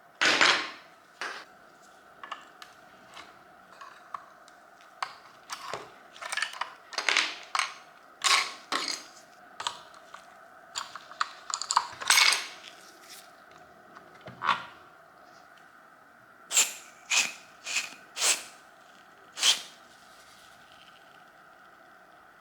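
Irregular sharp clicks and clinks of metal parts and hand tools being handled, some loud, over a faint steady hum.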